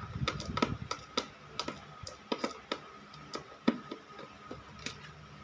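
Irregular small clicks and taps of plastic DIN-rail circuit breakers and a screwdriver being handled on a plywood board: a quick flurry in the first second, then scattered single clicks.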